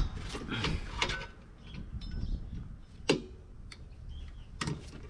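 Metal clicks and scrapes from pushing in and twisting a drum brake shoe's hold-down spring retainer to release it, with a sharp click about three seconds in and another near the end.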